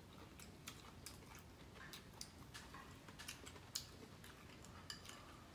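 Faint crunching of someone chewing crisp food, shrimp crackers and crunchy pig-ear and seaweed salad, heard as scattered sharp clicks.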